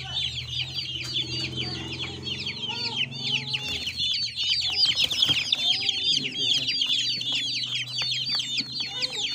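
Broiler and aseel chicks about a week and a half old peeping continuously, a dense chorus of short, high, falling calls.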